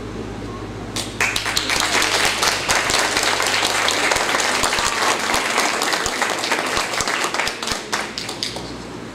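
Audience applauding: clapping breaks out about a second in, holds steady, and fades out near the end, over a steady low hum.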